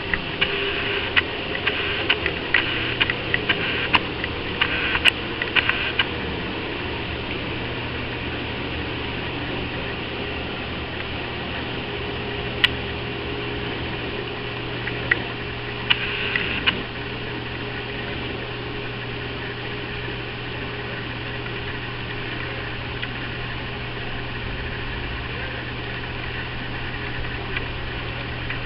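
A steady low mechanical hum, with scattered light clicks and taps during the first six seconds and a few more about halfway through.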